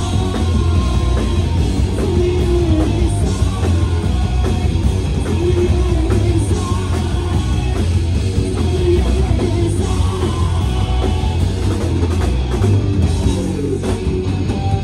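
Loud rock music played by a band: drum kit, guitar and bass with a singing voice, going on steadily without a break.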